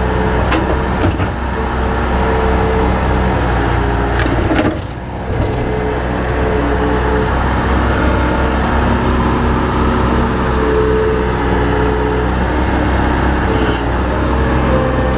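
Vehicle engine running steadily, with a brief dip in loudness about five seconds in.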